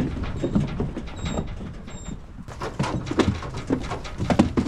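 Sheep bleating and knocking about in a livestock trailer as reluctant ewes are loaded, over the low rumble of a running tractor.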